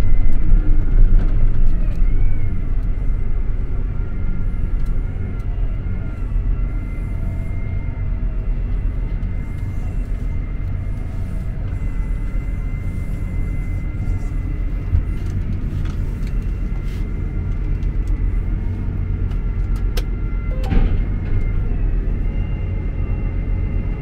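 John Deere 8R tractor heard from inside its cab while driving: a steady low engine and running rumble with a thin, steady high whine over it, easing a little in loudness over the first few seconds. A single sharp click about 20 seconds in.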